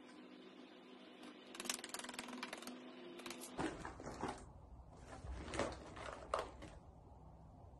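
Small cosmetic items being rummaged through and handled: rustling with a series of light clicks and clacks, and a faint low rumble joining a little after halfway.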